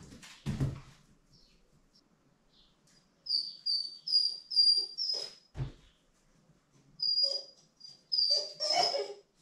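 Husky landing with a thump after jumping down from a kitchen counter, then whining in a string of short, high-pitched whimpers, with another thump in the middle and longer, fuller whines near the end.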